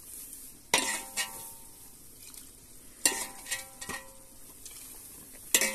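Metal ladle knocking and scraping against a cooking pot while gravy is scooped out: three sharp knocks, each with a couple of lighter taps after it and a brief metallic ring, over the faint sizzle of chicken gravy cooking in the pot.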